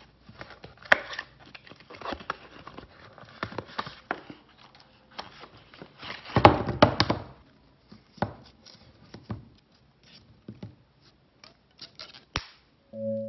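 Cellophane wrapper being torn off a new deck of playing cards by its red tear strip: irregular crinkling and crackling of plastic, loudest about halfway through.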